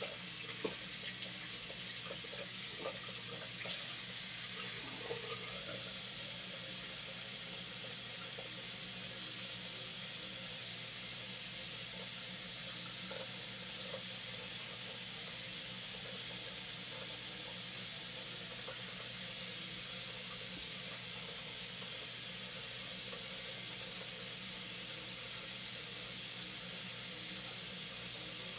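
Bathroom sink tap running, a steady hiss of water into the basin, with a few small splashes from hands in the stream near the start. The flow gets a little louder about four seconds in.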